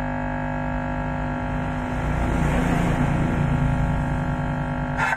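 Home-built miniature amplifier's speakers giving out a loud, steady electrical hum (dengung) with many overtones. A rough crackling noise swells in about a second and a half in and runs until a sharp click near the end, when it drops back. The fault is put down to a bad power-supply connection.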